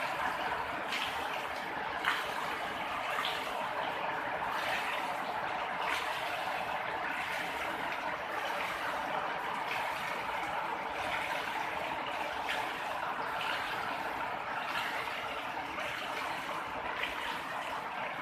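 Heavy rain falling steadily, with a few sharper drips or splashes standing out, the loudest about two seconds in.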